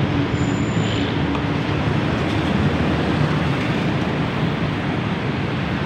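Steady rumble of road traffic passing close by, with a constant low hum and no single event standing out.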